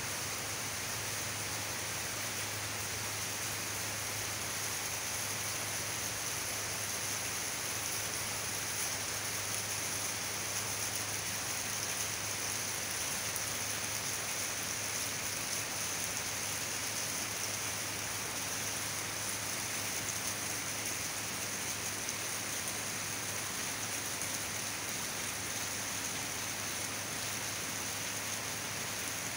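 Heavy rain falling steadily, an even unbroken hiss.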